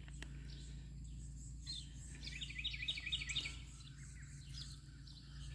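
Bird song over a steady low background hum: a quick series of high chirps, about eight a second, lasting a little over a second near the middle, with a few single chirps before and after.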